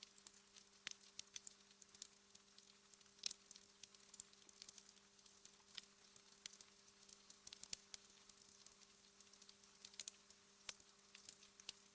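Wood fire crackling in a fireplace: faint, irregular sharp pops and ticks, the loudest about three seconds in.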